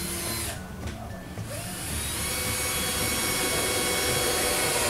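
A power tool running against the wooden hut, stopping briefly about half a second in and starting again a second later.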